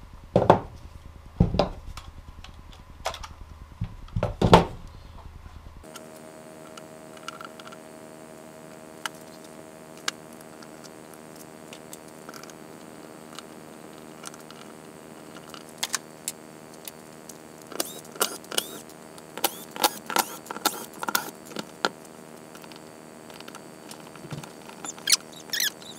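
Clicks and light metallic clinks of small screws and a hand screwdriver as the plastic housings of two cordless impact drivers are unscrewed and handled, with a few sharp knocks of the tools set down on a wooden bench in the first few seconds. From about six seconds in, a steady low hum runs under the clicking, which grows busier over the last ten seconds.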